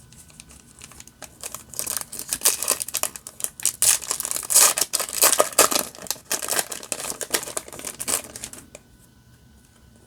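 Foil Yu-Gi-Oh booster pack wrapper crinkling and being torn open by hand, a dense crackling that is loudest in the middle and stops about a second before the end.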